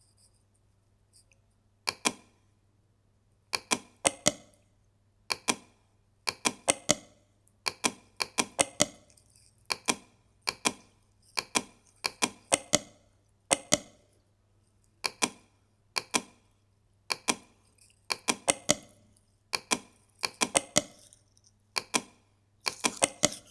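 Computer mouse clicking in quick clusters of two to four clicks, repeated every second or two, as supports are placed one by one on a 3D model, over a faint steady electrical hum.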